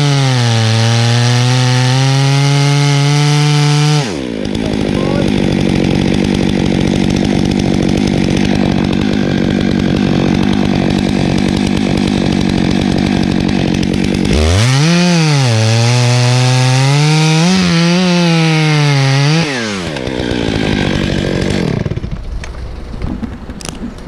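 Stihl chainsaw revving at full throttle into a hickory trunk, dropping to idle about four seconds in. It revs up to cut again for about five seconds in the middle, then drops back and quietens near the end.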